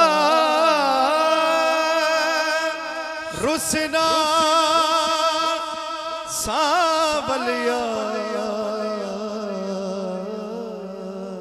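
A man's voice singing a naat: a long, ornamented held phrase with a wavering vibrato, fading slowly toward the end. A steady lower tone holds beneath it, and two brief sliding sounds cut across it, about a third of the way in and about halfway.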